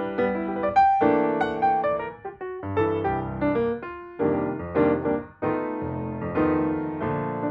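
Background piano music: notes struck and fading, several sounding together in chords.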